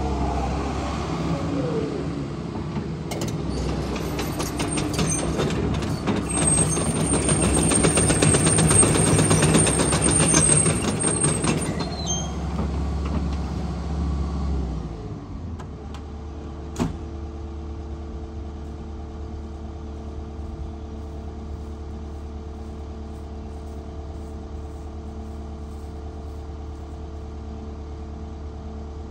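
Volvo ECR145D excavator's diesel engine working under load as the machine tracks and turns on gravel, with clattering tracks and a high-pitched whine in the middle stretch. About fifteen seconds in the engine drops to a steady idle, and a single sharp click follows a couple of seconds later.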